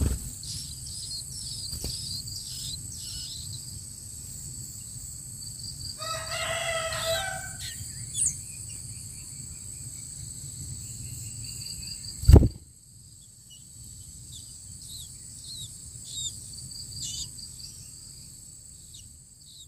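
A rooster crows once, about six seconds in, a call of roughly two seconds that falls at the end, over a steady high insect drone and scattered short high chirps. A sharp loud thump comes about twelve seconds in.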